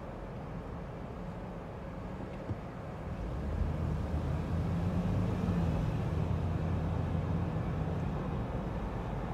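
City street traffic noise picked up from a car roof, with a single brief knock about two and a half seconds in. From about three seconds in, a louder low engine rumble comes in as the traffic pulls away from the intersection.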